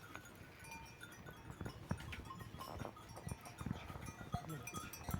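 Bells of a flock of small livestock tinkling faintly, with scattered light knocks.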